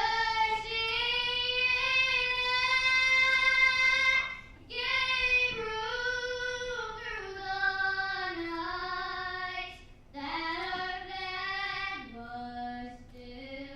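A high solo voice singing unaccompanied in long held notes, in three phrases with short breaks between them, the melody stepping lower through the passage.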